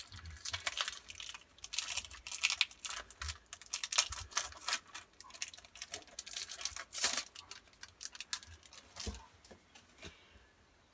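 Foil trading-card booster pack being opened: irregular crinkling and tearing of the wrapper, with cards being handled. The crackling dies down about nine seconds in.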